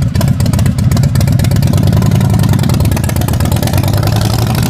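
Custom fat-tyre Harley-Davidson bobber's V-twin engine running with a rapid, even beat as the bike pulls away from the kerb.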